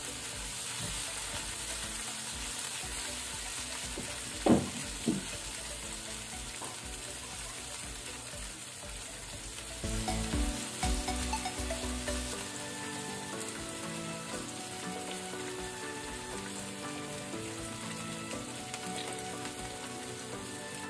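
Garlic, onion and tomato sizzling in hot oil in a nonstick frying pan, stirred with a metal slotted spatula. Two sharp knocks about four and a half and five seconds in, and louder stirring from about ten to twelve seconds in.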